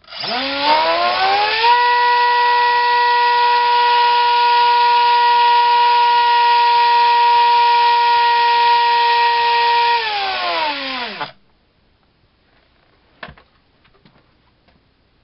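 A2212 2700kv brushless outrunner motor driving a 4.1×4.1 propeller on a thrust stand: it spins up to full throttle with a quickly rising whine, runs steady for about eight seconds, then is throttled back and winds down with a falling whine. A single click follows a couple of seconds later.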